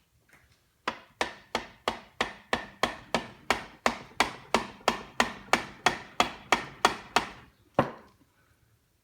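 Rubber mallet tapping repeatedly on the shaft of an Atlas 73 drill press head to drive it out: about twenty steady blows, roughly three a second, with a last separate blow near the end.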